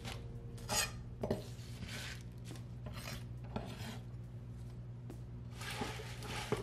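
Chef's knife on a wooden cutting board: a few scattered strokes, then a longer rasping scrape near the end as the blade gathers chopped spinach off the board.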